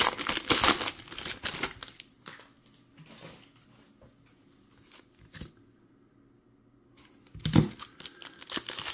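Foil wrappers of Topps Pristine baseball card packs crinkling and tearing in the hands as a pack is opened. Loud in the first two seconds and again from about seven seconds in, with a much quieter stretch of faint crackles between.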